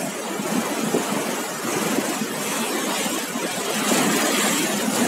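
Sea surf breaking and washing over coastal rocks: a steady rushing noise.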